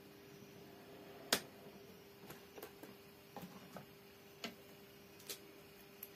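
Scattered sharp clicks and taps of tools and test leads being handled on an electronics workbench, one louder click about a second in, over a faint steady hum.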